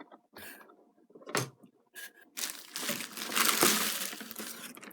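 Handling of a model train car's packaging: a couple of small knocks, then about two seconds of rustling and crinkling.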